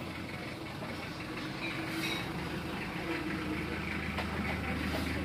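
Yamaha Sniper MX135 four-stroke single, bored up to 177cc, running at idle after four months unused, a steady low hum with light rapid clicks that gets a little louder about two seconds in. The bike has been hard to start and the owner thinks it needs a tune-up.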